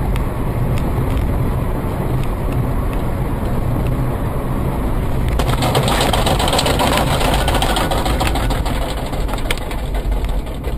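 A car's engine and road noise, a steady low rumble, with a louder hiss joining about five and a half seconds in.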